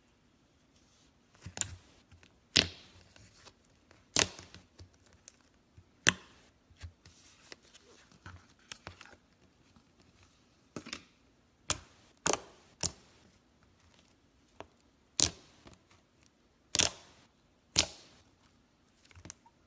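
Fluffy slime being pressed, folded and stretched by hand, giving a series of sharp pops and clicks at irregular intervals, about a dozen loud ones.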